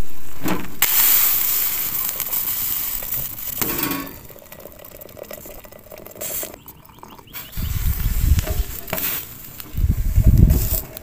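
Hissing and sizzling from a Turkish double teapot on a hot wood stove, loudest at first and fading over a few seconds. Near the end come two low rumbling bursts.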